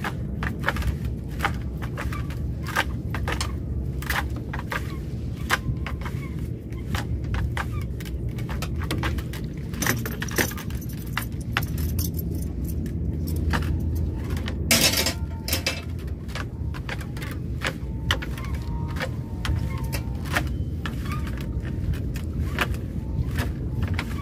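Drift gill net being hauled into a boat by hand, its weighted line and mesh clattering and jingling in many quick sharp clicks, over a low steady rumble. A louder burst comes about fifteen seconds in.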